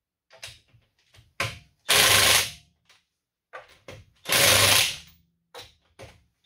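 Impact wrench on a medium setting giving each wheel lug nut a quick snap: two short hammering bursts about two and a half seconds apart, with small clicks between them.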